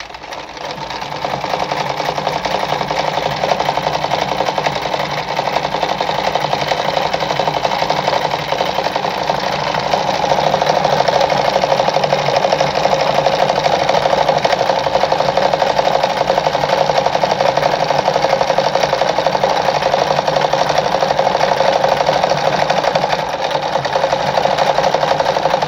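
Mercedes 340FB sewing machine running steadily at a fast, even rhythm as it sews a decorative design stitch. It picks up speed over the first second or two and runs a little louder from about ten seconds in.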